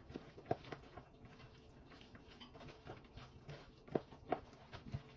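Soft, irregular wet squelches and clicks of a hand mixing chicken pieces, sliced onion and mayonnaise in a plastic bowl, with a few sharper ticks about four seconds in.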